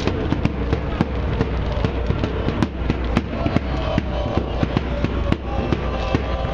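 Firecrackers going off in quick, irregular succession, several bangs a second, over the noise of a crowd on the railway tracks.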